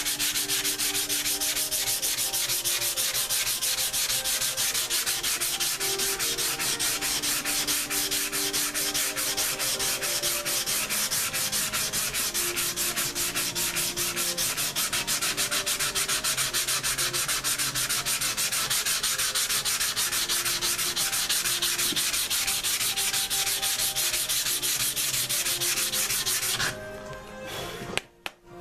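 Hand sanding with 120-grit stick-on sandpaper on a Soft Sanders block, fast steady back-and-forth strokes cutting down a coat of body glaze. The paper cuts freely without clogging. The sanding stops about two seconds before the end.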